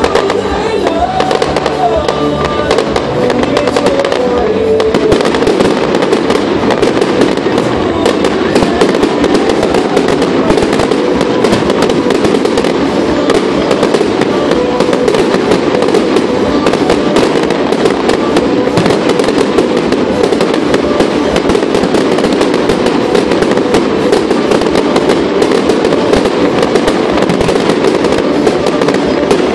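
Fireworks display: aerial shells bursting in a continuous barrage of rapid crackles and bangs, with music playing underneath.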